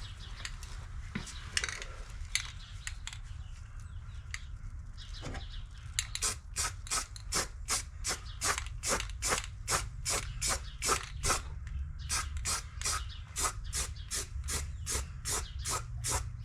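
Paint brush scrubbing paint onto the rusty underside of a wheel well, in quick back-and-forth strokes about two or three a second, starting about six seconds in after some soft shuffling.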